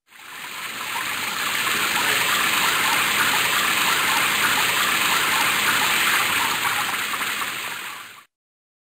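Water gushing steadily from a tap turned full on. It fades in over the first second and cuts off abruptly near the end.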